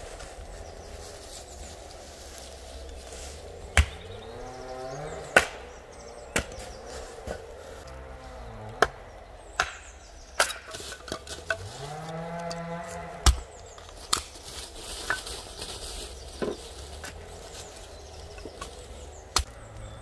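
An axe splitting firewood on a wooden chopping stump: about a dozen sharp, irregularly spaced strikes. Two long, low animal calls that rise in pitch sound in the background, one about four seconds in and one about twelve seconds in.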